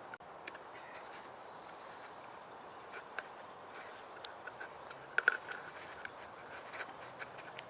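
Scattered light clicks and scrapes of a metal syrup feeder can being worked loose from the top of a cardboard honeybee package, the sharpest two a little after five seconds, over a faint steady background hiss.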